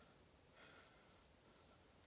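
Near silence: room tone, with two faint ticks.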